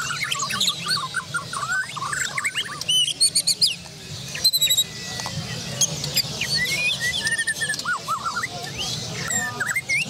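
Several caged Bornean white-rumped shamas (murai batu Borneo) singing at once: a dense, overlapping mix of quick whistled glides, chirps and trills. The loudest phrases come about three to four and a half seconds in.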